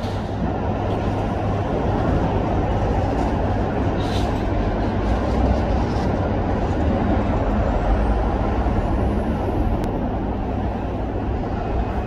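Steady low rumble and hiss of urban traffic, with a faint high whine rising about two-thirds of the way in.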